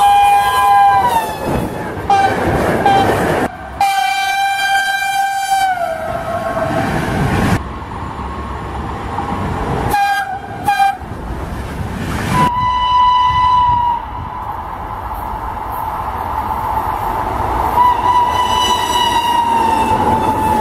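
A run of cut-together clips of electric trains passing at speed: locomotive horns sounding repeatedly, the first from an FS E.402 electric locomotive, with several long blasts dropping in pitch as the train goes by. Under the horns come the rumble and rattle of the passing coaches and freight wagons.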